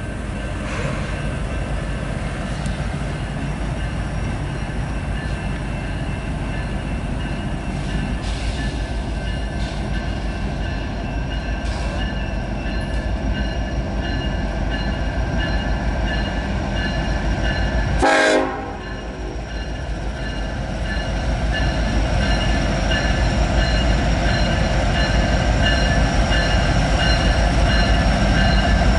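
Train running past with a steady low rumble and faint steady squealing tones. A short pitched horn blast sounds about two-thirds of the way through.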